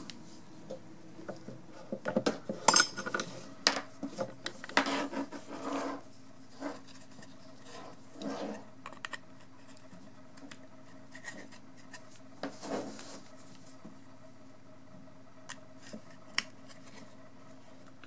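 Clicks and short scrapes of USB-C cable plugs being pulled out of and pushed into the sockets of a small cable tester board, with handling of the board. The sounds are busiest in the first half, then a few isolated clicks.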